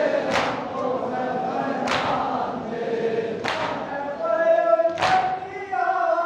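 A group of men chanting a noha (mourning chant) in unison while beating their chests in matam: a sharp, hard slap of many hands together about every one and a half seconds, four times, in time with the chant.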